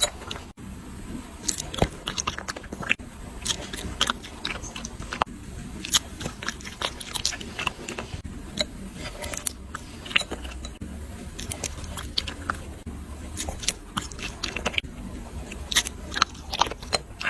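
Dogs eating rice: irregular chewing and mouth-smacking clicks.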